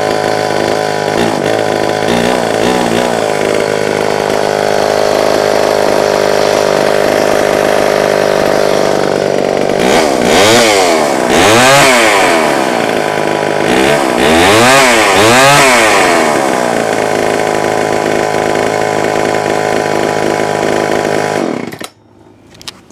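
Homelite XL903 two-stroke chainsaw running at idle on the bench, revved up and back down in two spells of throttle blips partway through, then shut off near the end.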